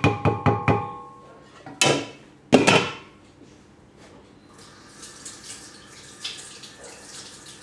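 A wooden spoon tapped in a quick run of knocks against a metal saucepan, which rings, followed by two louder clatters. About four and a half seconds in, a kitchen tap starts running into the sink.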